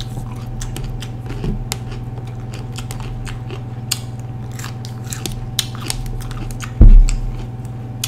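Close-up biting and chewing of raw green bell pepper, with many small crisp crunches. A loud low thump comes near the end.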